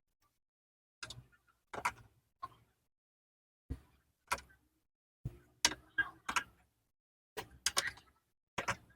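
About a dozen short, irregular clicks, taps and knocks from small parts being handled and set down during a spin-dryer seal repair, with silence between them.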